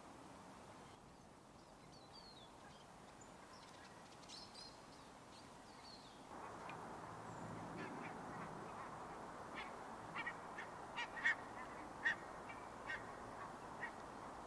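Geese honking in a series of short calls in the second half, the loudest about eleven and twelve seconds in, with faint high chirps earlier on.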